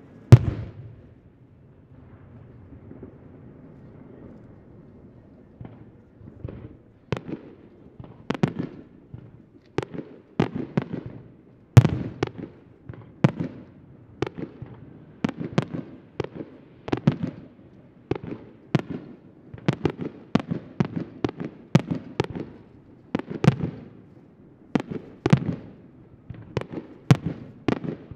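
Aerial firework shells bursting: one loud bang at the start, a lull of a few seconds, then from about six seconds in a rapid run of sharp bangs, several a second.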